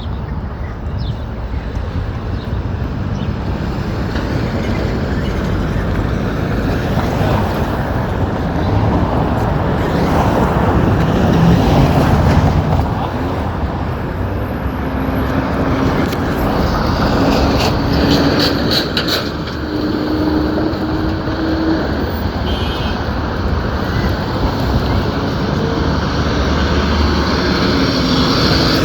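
Road traffic on a busy city street: cars and trucks passing steadily, swelling loudest a little under halfway through, with a low engine hum held for a few seconds past the middle.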